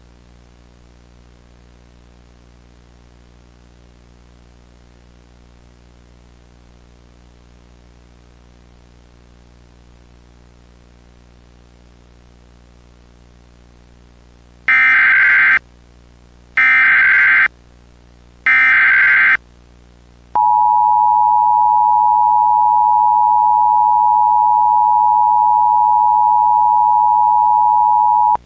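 Emergency Alert System activation: three loud, identical screeching SAME header data bursts about two seconds apart, followed by the long steady EAS attention tone that holds for about eight seconds. Before the bursts there is only a low steady hum.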